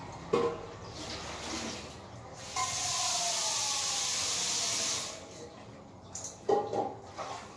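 A steady rushing hiss, like running water, lasting about two and a half seconds in the middle, with a faint falling tone under it. There are short sharp squeaks about half a second in and again near the end.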